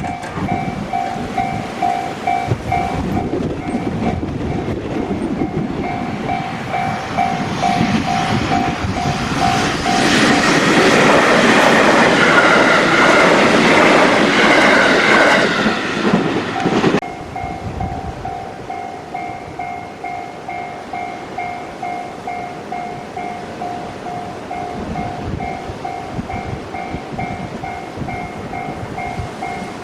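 Japanese level-crossing warning bell ringing in a fast repeating ding while a train passes over the crossing. The train noise swells to a loud rush about ten seconds in and stops abruptly a few seconds later. The bell keeps ringing over rhythmic wheel clatter.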